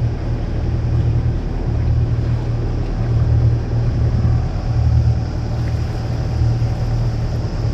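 Boat engine running at a steady speed: a low drone that swells and eases every second or so, over a rushing noise of water and wind.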